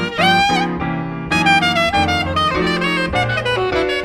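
Jazz saxophone playing a melodic line over piano chords, with a note scooped upward just after the start.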